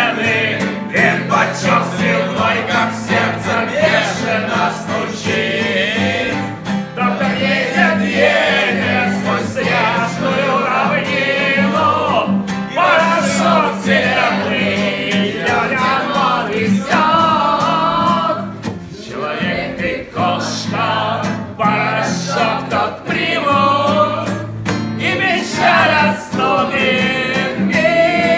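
A group singing a song together in Russian, led by a man's voice, to a strummed nylon-string acoustic guitar.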